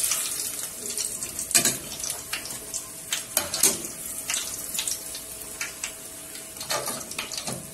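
Banana fritter dough balls deep-frying in a pot of hot oil, a steady sizzle, with repeated short clinks and scrapes of a wire skimmer against the metal pot as the fritters are turned and lifted out.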